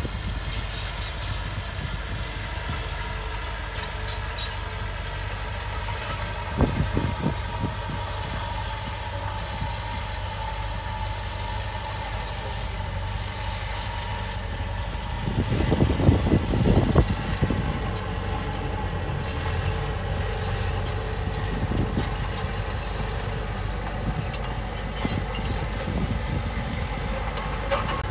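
Heavy diesel earthmoving machine running steadily with a low engine drone. It surges louder with a clattering burst about seven seconds in, and again for about two seconds around the middle.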